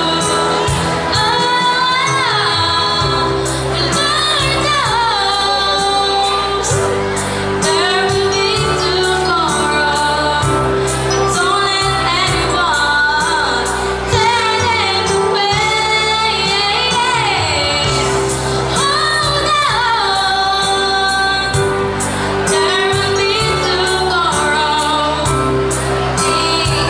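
A woman singing a song into a microphone, holding long gliding notes over instrumental accompaniment with a bass line and a steady, quick beat.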